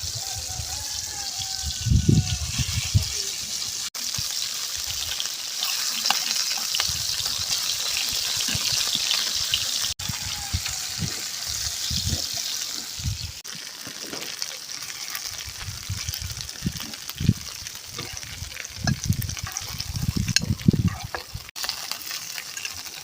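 Fish frying in hot oil in a pan: a steady sizzle with crackling, and occasional low thumps.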